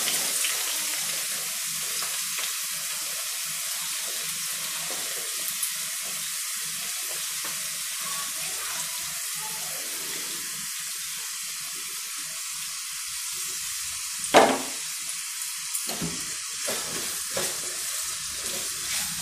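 Chopped onions frying in hot oil in a nonstick pan, a steady sizzling hiss. A single loud knock about three-quarters of the way through, then a spatula scraping and tapping against the pan as the onions are stirred.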